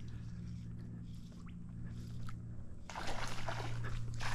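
A small hooked tarpon splashing and thrashing at the water's surface on a fly line, with irregular splashes starting about three seconds in, over a steady low hum.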